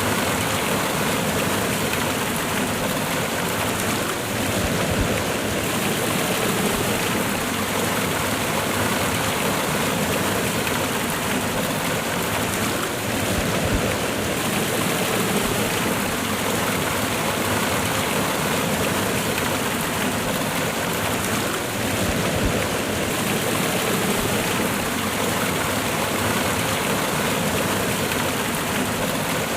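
Water of a cascading waterfall rushing and splashing over rocks, a steady, unbroken roar of falling water.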